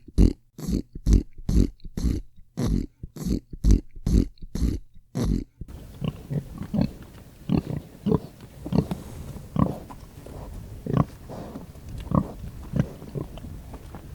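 Hog grunting: a steady run of short, loud grunts about two a second, then, after about five and a half seconds, a change to softer, irregular grunts over background noise.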